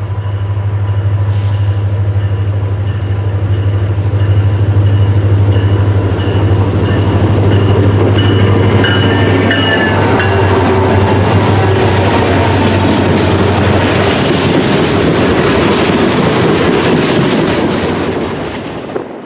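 CSX diesel freight train passing close: a steady low engine drone under the rumble of wheels on the rail, with thin high wheel squeals in the middle. It builds over the first few seconds, then fades and cuts off at the end.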